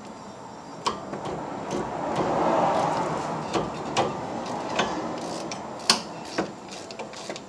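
Hand wrench working the brake caliper bolts on a car's front wheel: irregular metal clicks and clinks, several a few seconds apart. A rushing noise swells and fades in the middle.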